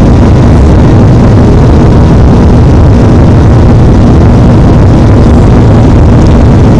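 Boeing 737-800's CFM56-7B turbofan engines at takeoff climb power, heard from inside the cabin over the wing: a loud, steady low rumble with a constant hum running through it.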